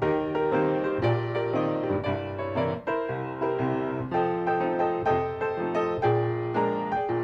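Piano music: a lively piece with chords struck on a regular beat under a melody.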